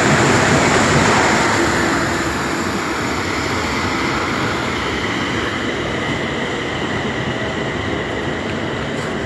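London Northwestern passenger train running along the platform: a steady rumble and rush of wheels on rail. It is loudest at first and eases off after about two seconds.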